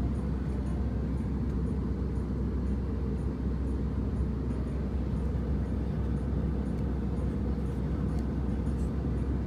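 Airbus A319 cabin noise in flight: a steady low roar of engines and airflow.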